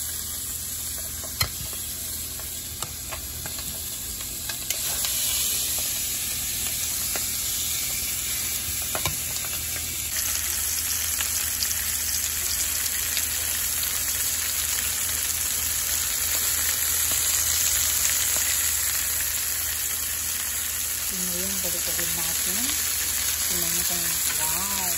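Chicken leg quarters searing skin-side down in hot oil in a nonstick frying pan, a steady sizzle that grows a little fuller after about ten seconds. A few sharp clicks come in the first ten seconds.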